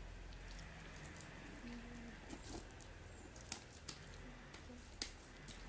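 Hands patting and smoothing a mound of wet soil: soft squishing with a few sharp pats, the loudest near the end.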